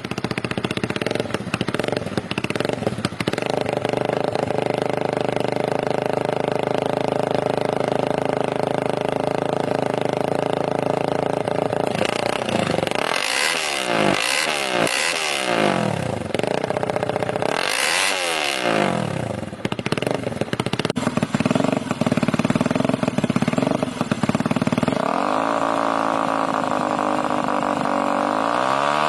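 Supercharged Yamaha Y15ZR motorcycle's 150 cc single-cylinder engine idling, blipped up and down quickly several times in the middle, then revved up smoothly near the end and held at a higher steady speed.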